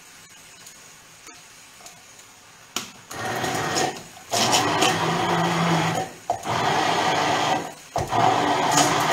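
Electric blender pureeing cooked cannellini beans with a little broth into a cream. It starts about three seconds in and runs in four bursts with brief stops between them.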